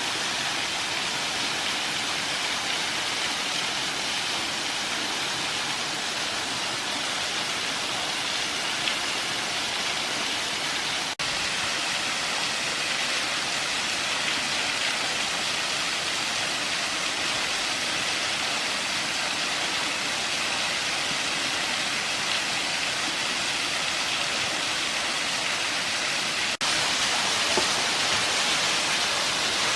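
Waterfall pouring steadily: an even rush of falling and splashing water, a little louder after a brief break about 26 seconds in.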